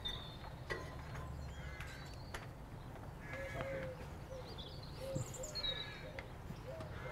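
Birds chirping and calling in the background, in scattered short phrases over a low steady outdoor rumble, with a few faint clicks from hands handling parts on the aluminium pergola frame.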